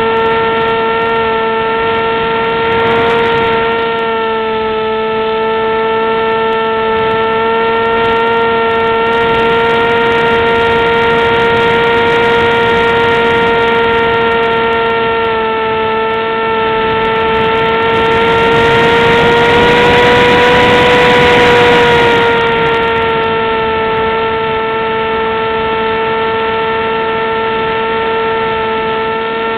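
RC airplane's motor and propeller heard from on board the plane: a steady high-pitched drone that rises slightly in pitch and loudness about two-thirds of the way through, with a rush of wind noise over it at the same time.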